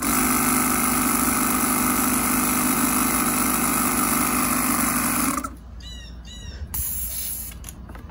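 Portable air compressor running steadily while topping up air in a dirt-bike tire, then cutting off suddenly after about five seconds.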